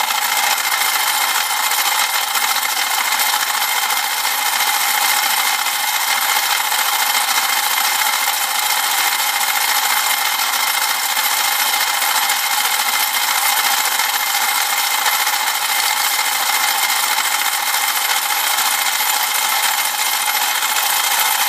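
Molecular motion demonstrator running: its vibrating sides shake a trayful of glass marbles into a dense, steady rattle against the metal frame and the divider.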